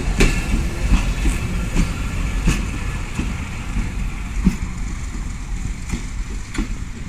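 Bangladesh Railway passenger coaches rolling past and away on the track: a low rumble that fades as the last coach recedes, with scattered sharp clacks of the wheels over the rail joints.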